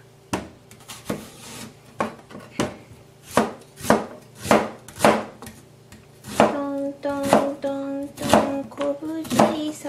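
Kitchen knife chopping an onion on a plastic cutting board, a sharp tap every half second or so. A melody comes in about six seconds in.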